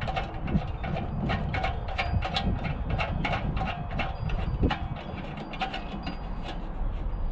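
Irregular metallic clicks and taps of pliers turning a conduit locknut ring inside a metal time-switch enclosure, over a low rumble.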